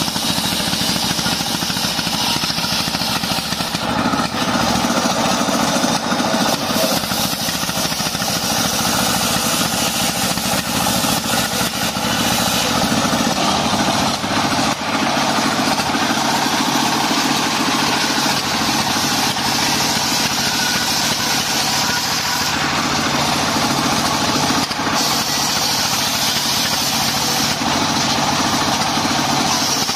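A stationary single-cylinder diesel engine runs steadily, belt-driving a homemade table circular saw. The blade rips through lamtoro (leucaena) wood in several long cuts, and the high saw noise swells and eases between passes.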